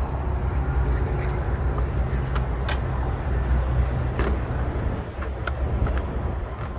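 Hands working on parts in a car's engine bay: a few light, sharp clicks and knocks over a steady low rumble.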